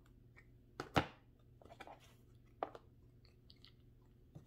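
Packaging of a gel moisturizer being handled and opened: a few sharp clicks and crinkles, the loudest about a second in.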